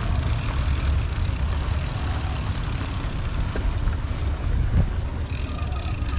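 Low wind rumble buffeting the microphone while a BMC mountain bike rolls along, its tyres going from grass onto a concrete path, with a few faint ticks.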